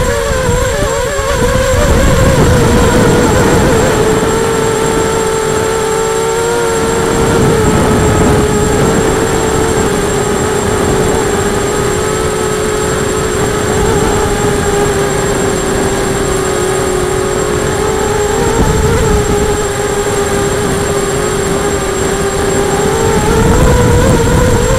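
Radio-controlled model aircraft in flight, recorded on board: its motor and propeller give a steady droning note over heavy wind rush on the microphone. The pitch dips slightly a few seconds in and rises again near the end.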